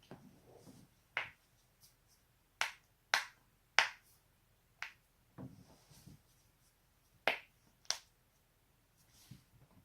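A person's spinal joints cracking: a series of sharp pops, about six loud ones with a pause in the middle, and fainter duller clicks between them.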